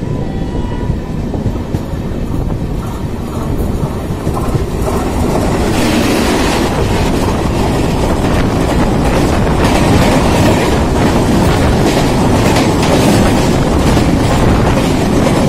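Running noise and wind of a moving passenger train. About six seconds in, the Humsafar Express's LHB coaches pass close alongside in the opposite direction, and the sound swells into a louder rush with rapid clattering of wheels over the track that keeps on.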